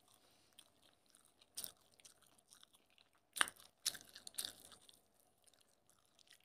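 Faint mouth sounds of a person eating food by hand: a few short wet clicks and smacks of chewing, the loudest a little over three seconds in, with a quick cluster soon after.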